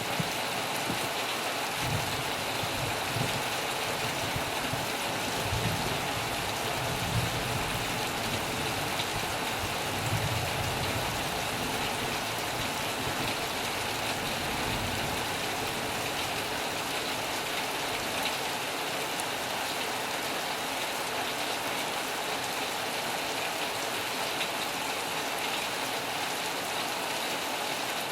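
Heavy rain falling steadily, a dense even hiss, with a few low rumbles in the first ten seconds or so.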